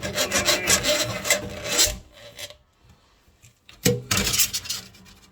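Quick, rough scraping and rubbing strokes that stop about two seconds in, then a second short burst of scraping near four seconds in.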